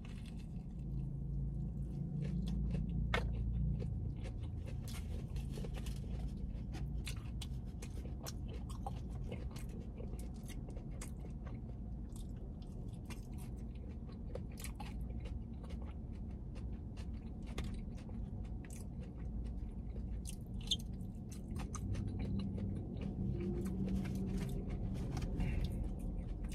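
A person chewing close to the microphone: a bite into a fried chicken sandwich, then chewing fries, with many small crunches and wet mouth clicks throughout.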